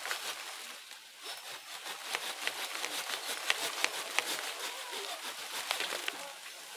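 Mango branch and leaves being worked by hand to free an air-layered seedling: leaves rustling with an irregular run of sharp cracks and clicks as the wood is bent and snapped.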